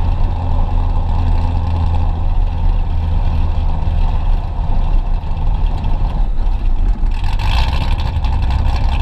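Supercharged C7 Corvette 6.2 L LT1 V8 with catless long-tube headers and an X-pipe, exhaust running with a steady low drone as the car drives along, heard from a camera on the rear of the car. About seven and a half seconds in, a brighter, higher sound briefly comes up over the drone.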